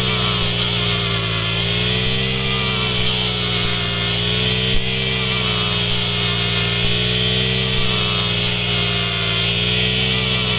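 Brush cutter engine running steadily with a circular saw blade fitted, its speed wavering slightly up and down.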